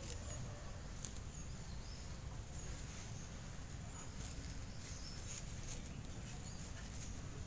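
Faint rustling and light clicks as hands press soil and handle a thin clear plastic ring around a plant cutting, over a low steady rumble.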